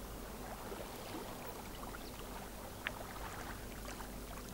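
Gentle background water sound, small splashes and trickles like water lapping, over a faint steady low hum.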